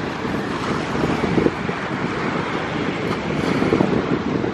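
Steady rumble of a departing jet airliner climbing away, with wind buffeting the microphone.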